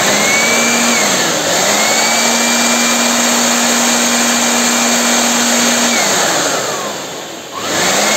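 Handheld electric air blower running with a steady motor whine, blowing on a freshly cleaned and oiled graphics card fan to spin it. Its pitch sags briefly about a second in, winds down about six seconds in, and comes back up near the end.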